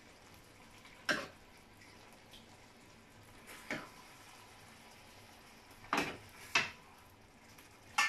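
Kitchenware being handled: four sharp knocks, about a second in, near four seconds, and twice close together around six seconds, over faint room noise.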